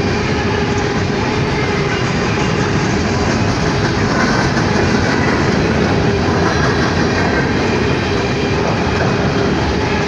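Empty coal cars of a freight train rolling past: a steady, loud noise of steel wheels on the rails with a clickety-clack over the rail joints.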